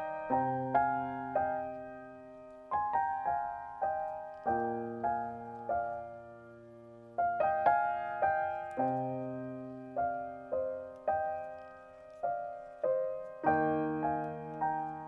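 Background piano music: slow, gentle single notes and chords that each strike and then ring and fade.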